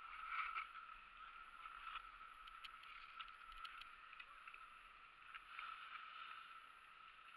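Near silence: a faint steady hiss with a few soft clicks.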